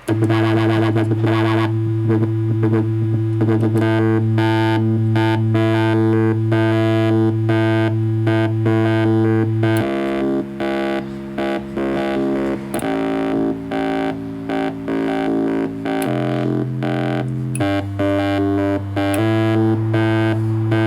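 Proton, a small battery-powered DIY synthesizer built around a single chip, played by a step sequencer. A rich, buzzy sustained low note sounds under a fast repeating run of notes. The bass note steps to a new pitch every few seconds.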